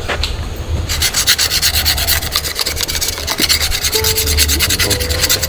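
Fast scratching or rubbing on the bark of a cinnamon tree's stem, a quick even run of strokes that starts about a second in and stops near the end.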